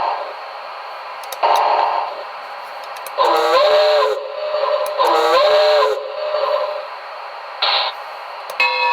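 Recorded small steam locomotive sound effects from a model-train sound system, played through a speaker: bursts of steam hiss and two blasts of a multi-note steam whistle, each bending up in pitch as it starts and sagging as it ends. A ringing bell begins right at the end.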